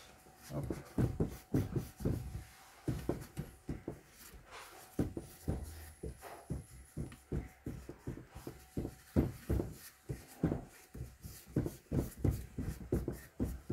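Cloth rag rubbed hard over the metal crankcase face of a K750 motorcycle engine, a run of uneven scrubbing strokes at about two a second.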